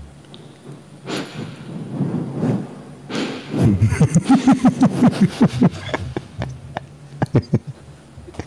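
A person laughing in a quick run of breathy pulses about two seconds long, with a breathy exhale a second in and a few soft clicks near the end.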